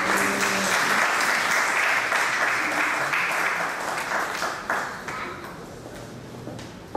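Audience applauding, loud for the first three or four seconds, then dying away.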